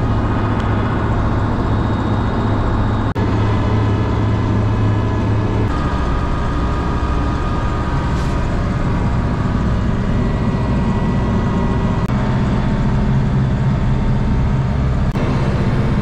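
A vehicle engine running steadily with a low hum. There is a brief break about three seconds in, and the engine note shifts down about six seconds in and shifts again about twelve seconds in.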